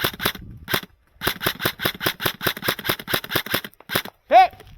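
Airsoft gun firing on full auto: rapid sharp clicks about ten a second in two long bursts with a short pause between, then a couple of single shots. Near the end comes a loud, short squeal that rises and falls in pitch.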